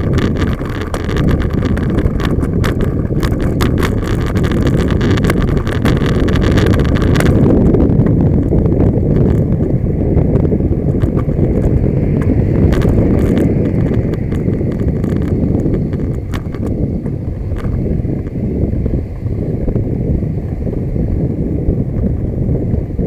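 Car being driven along a road, heard from inside through a dashcam's microphone: a steady low road and engine rumble, with rapid clicking and rattling for the first seven seconds or so that then mostly dies away.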